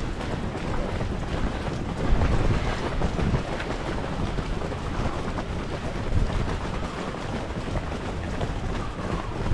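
Wind buffeting the microphone over a continuous low rumble, with no clear tones or distinct events.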